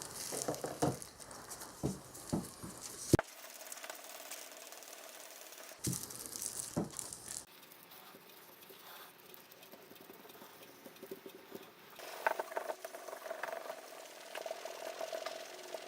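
Small hard parts clicking and rattling as they are handled, with several sharp knocks in the first few seconds.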